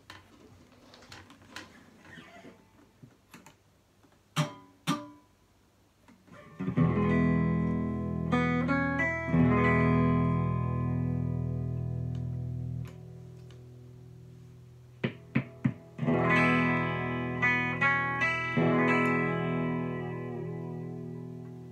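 1962 Framus New Sound thinline archtop electric guitar played through an amplifier. After a few seconds of handling noise with clicks and two sharp knocks, a chord rings out about seven seconds in with notes changing over it and then fades; a few quick plucks lead into a second chord about sixteen seconds in that is left to ring and slowly fade.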